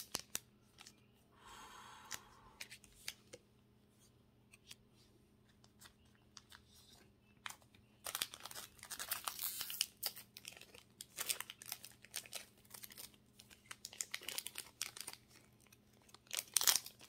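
Foil wrapper of a Pokémon card booster pack crinkling and tearing as it is pulled open by hand. The sound is mostly hushed for the first half, then comes in dense, irregular bursts of crackling from about eight seconds in.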